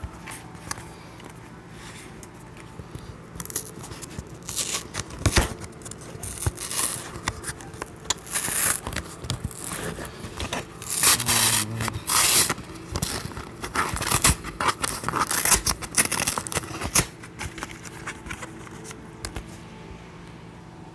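Irregular scraping, rustling and tearing of a cardboard box and its packaging being handled and opened. The sounds are busiest through the middle and die down near the end.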